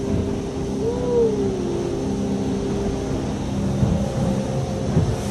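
Outboard engine of a Stabicraft 2250 Centre Cab boat running steadily at cruising speed, a low rumble with a constant hum. About a second in, a short tone rises and then falls back.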